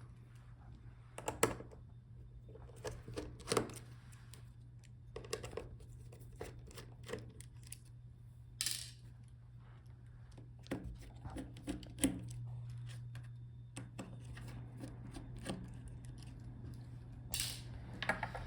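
Small screwdriver working tiny metal screws out of a laptop's screen hinges, with scattered light clicks and taps of screws and tools on the work surface over a steady low hum.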